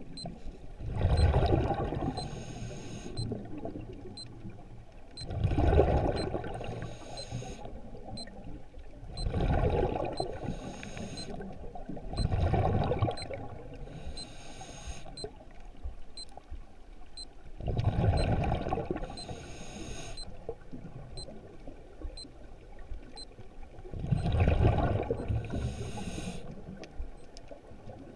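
A scuba diver breathing through a regulator underwater: each breath is a surge of exhaled bubbles rumbling and gurgling, then a short hiss, repeating about every four to six seconds.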